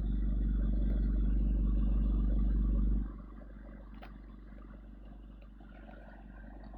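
Motor vehicle running with a loud, deep rumble that drops off about three seconds in to a quieter steady rumble.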